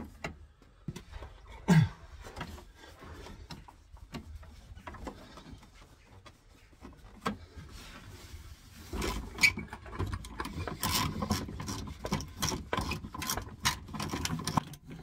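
Scattered clicks and knocks of hands working among fuel lines, then from about nine seconds in a ratchet wrench on an extension bar clicking rapidly as a bolt on the underside of the van is undone.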